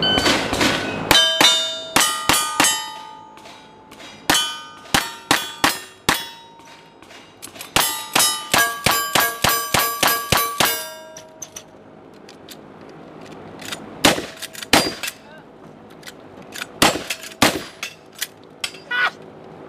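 Gunfire at steel targets: a rapid string of shots, including a lever-action rifle, each followed by the ringing clang of a steel plate being hit. The ringing stops after about eleven seconds, and a few separate shots with little ringing follow near the end.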